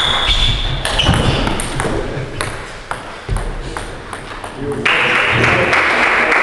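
Table tennis ball clicking sharply off the bats and the table during a rally, with a short ringing ping at the start. About five seconds in, clapping from a small crowd begins as the point ends.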